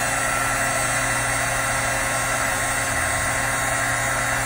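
Heat embossing gun running steadily, its fan motor giving an even rush of air with a constant hum, while it melts embossing powder on a stamped card.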